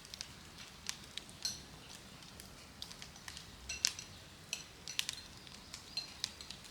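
Wood fire crackling: irregular sharp pops and snaps, a few a second, over a faint steady hiss.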